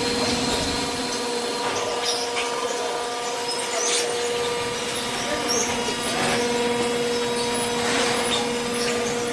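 Strapping (banding) machine running: a steady motor hum with a few short clicks and rattles.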